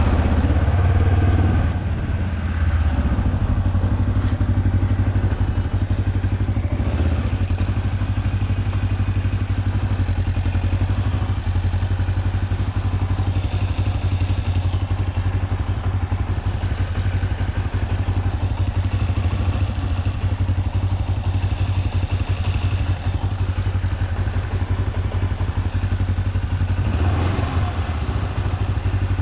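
Kawasaki KLE 400's parallel-twin engine running steadily at low speed while the motorcycle is ridden, with a brief drop in level about two seconds in.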